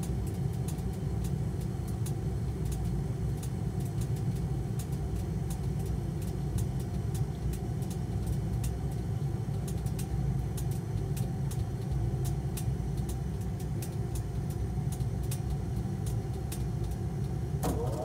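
Trane gas-pack heating unit running after burner ignition: a steady mechanical hum and rumble with faint, rapid ticking.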